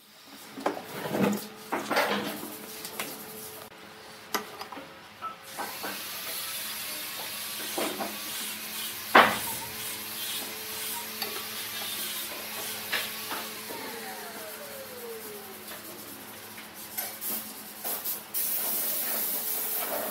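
Scattered taps and knocks of a steel square and marker being handled against the sawn end of a log on a wooden bench, the sharpest about nine seconds in, with a short falling squeak a little after halfway. Under them runs a faint steady hum and hiss.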